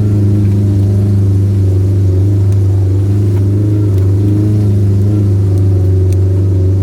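Off-road vehicle's engine running loud and steady under load at a nearly constant pitch, pulling up a steep trail climb.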